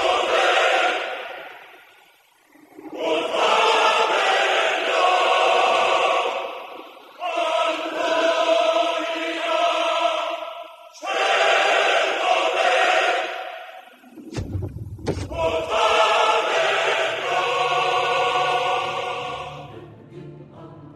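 Soundtrack music: a choir sings long held chords in phrases a few seconds long, each fading before the next. About two-thirds of the way through there is a deep boom, and then a low bass line comes in under the voices.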